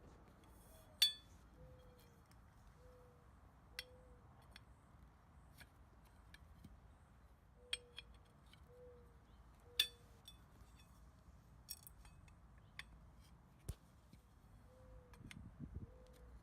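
Copper poles clinking and knocking as they are handled and slid into the drilled corner pieces of a pyramid frame: scattered sharp metallic clinks, the loudest about a second in and again near ten seconds. A faint soft tone repeats about once a second in the background.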